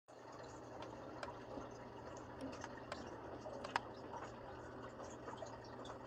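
Faint indoor room tone: a low steady hum under a soft hiss, with a few faint light clicks, the clearest about two-thirds of the way through.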